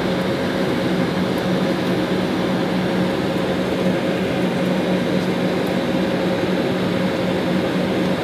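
Steady cabin noise inside an Embraer E195 airliner taxiing: the even drone of its GE CF34 turbofan engines at low power, with a steady low hum and air-conditioning hiss.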